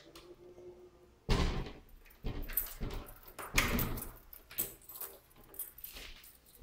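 A series of knocks and rattles: three louder thumps about one, two and three and a half seconds in, then several lighter knocks.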